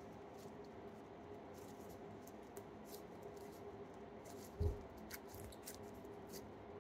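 Slime being stretched and pulled between the hands, giving faint sticky clicks and crackles, with one soft low thump about two-thirds of the way through.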